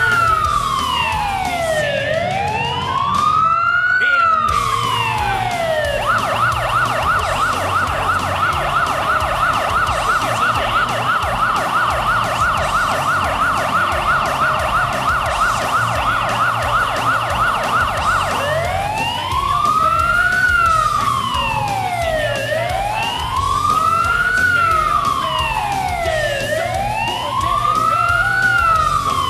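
Police car siren: a slow wail rising and falling about every four seconds, switching about six seconds in to a rapid yelp for some twelve seconds, then back to the slow wail.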